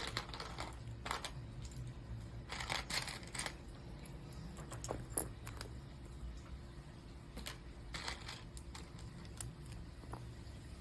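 Plastic LEGO pieces clicking and clattering as bricks are handled and pressed into place, in scattered clicks with a short run of clatter about three seconds in.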